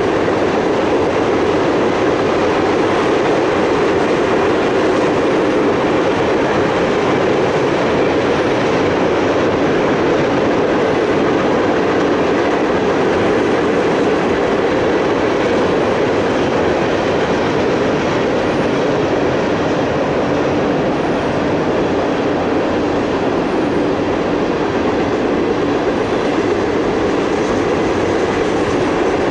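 Freight train's open hopper cars and tank cars rolling past: a loud, steady, unbroken noise of steel wheels running on the rails.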